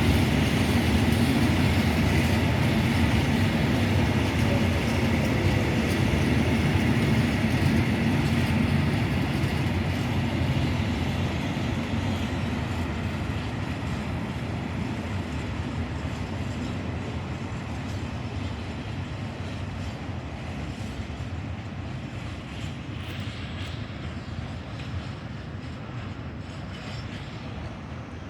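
Freight train of Eas open wagons rolling past, wheels clattering on the rails, the sound fading steadily as the train moves away.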